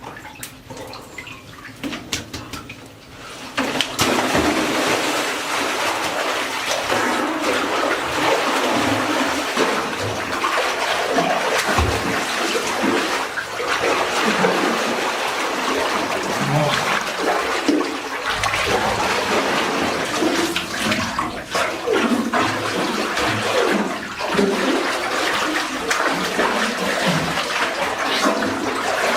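Water pouring and splashing steadily, starting abruptly about four seconds in after a few light clicks.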